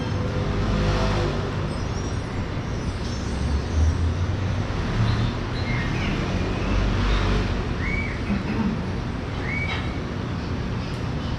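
Steady rumble of passing street traffic, with a few short high chirps over it in the second half.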